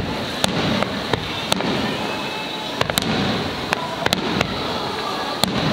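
Fireworks display: aerial shells bursting with sharp bangs and crackles at irregular intervals, over a steady hiss.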